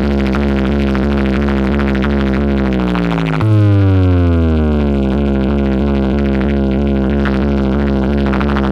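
Large DJ sound-box speaker rig playing loud electronic synth effects: quickly repeating falling pitch sweeps over a steady bass drone. About three and a half seconds in, it gets louder as a deeper bass tone and a long falling sweep come in.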